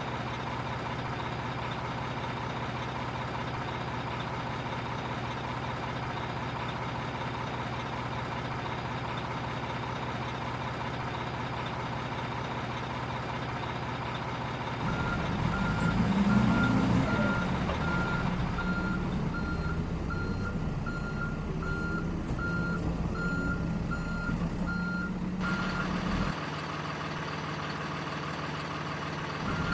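Simulated truck engine sound from an RC dump truck, running steadily at first and then louder with a brief rev about halfway in. At that point a reversing beeper starts and beeps at a steady, even rate, then stops shortly before the end.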